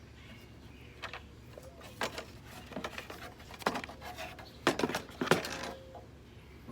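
Scattered clicks, knocks and rattles of lawnmower parts being handled during disassembly, the loudest cluster a little under five seconds in.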